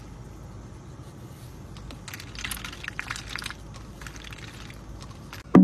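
A pet duck dabbling its bill in a plastic drink cup, making bursts of quick clicking and crackling, over the steady rumble of a car cabin. A sudden loud thump comes right at the end.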